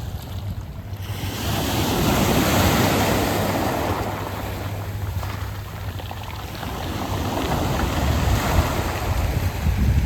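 Sea waves surging in and washing back over a beach of smooth, round pebbles. One wave swells about a second in, and another builds near the end.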